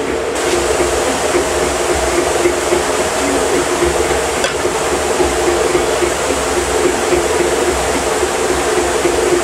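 A large iron kadai of sugar syrup at a hard, foaming boil over a wood fire, giving a steady bubbling rush. A steady hum runs under it.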